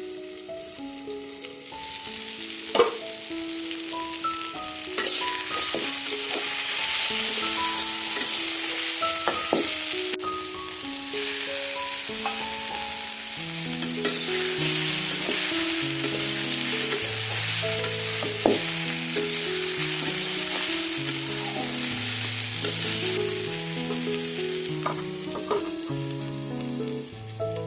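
Kundru, potato and mahua fruit frying in hot oil in a pan: a steady sizzle that swells a couple of seconds in and eases near the end, with a few sharp knocks of the stirring utensil against the pan. Background music, a simple melody with a low bass line joining halfway, plays under it.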